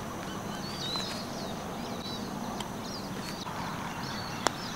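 Birds chirping repeatedly over a steady outdoor hiss, with one sharp click near the end.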